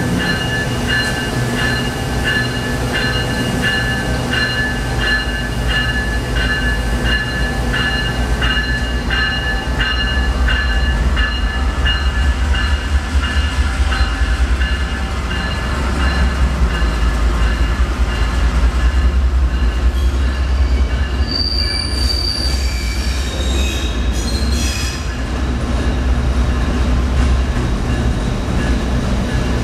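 Amtrak GE P42DC diesel locomotive moving slowly past, its engine giving a low, steady drone. Steel wheels squeal in evenly pulsing high tones through the first half, and a burst of higher screeching comes about three-quarters of the way through.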